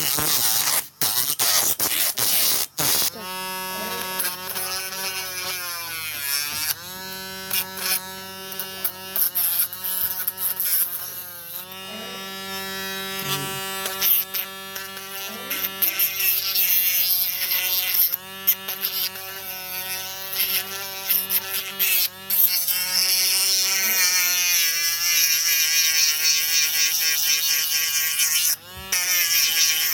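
Small mini drill motor running with a buzzing whine whose pitch dips and recovers over and over as its speed changes, cutting out briefly a few times.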